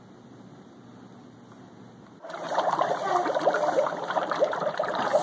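Dry ice bubbling in a pitcher of liquid, a busy, irregular bubbling that starts suddenly about two seconds in, after a faint steady hiss.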